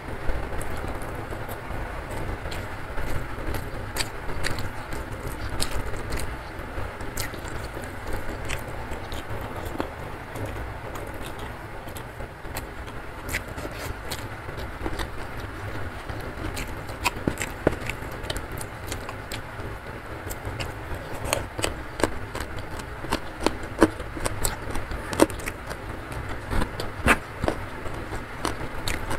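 Close-up eating sounds: wet chewing and lip smacks, with fingers squishing rice and chili sambal, as many sharp clicks that grow denser near the end. Behind them runs a steady hiss and rumble of heavy rain.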